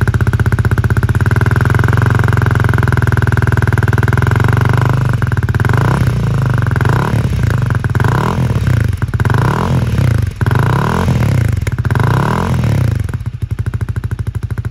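Honda Rebel 250's single-cylinder engine breathing through a TRICK STAR megaphone-type slip-on muffler, idling steadily after starting, then revved in a string of quick throttle blips from about five seconds in, and quieter near the end.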